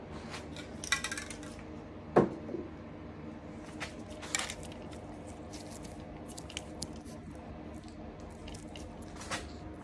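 Handling noises: plastic drop sheeting rustling and light scattered knocks and clicks, with one sharper knock about two seconds in. A steady low hum runs underneath.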